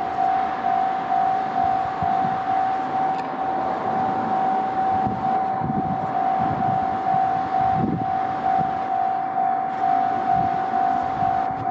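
Japanese railway level-crossing warning bell ringing, a single electronic ding repeating a little over twice a second. Under it is the low rumble of an approaching JR 701 series electric train.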